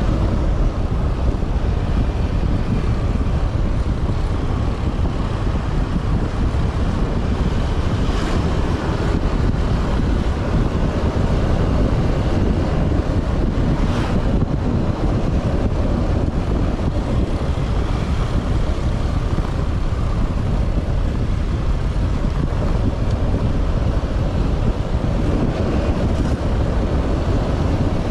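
Steady wind buffeting the microphone of a moving vehicle, with road and engine noise underneath.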